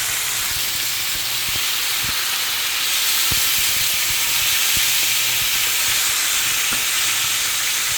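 Marinated bulgogi beef sizzling in hot oil in a frying pan, a steady frying hiss with steam and a few small pops of spattering oil.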